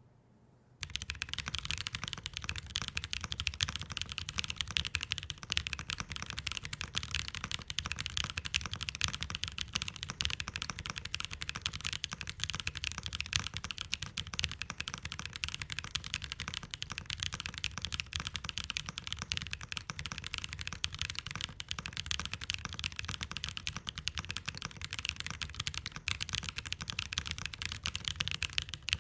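Fast continuous typing on a Sand Glass Ergo split mechanical keyboard with Chosfox Hanami Dango switches in an aluminium plate: a dense stream of key clacks and bottom-outs, with a deeper thock under the clicks, starting about a second in.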